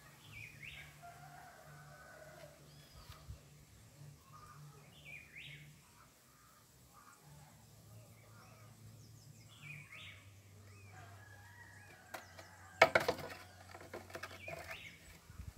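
Birds calling faintly at intervals, with a brief clatter of knocks about thirteen seconds in as PVC pipe and fittings are handled and set down.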